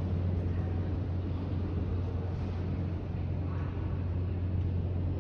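Steady low hum of subway station background noise.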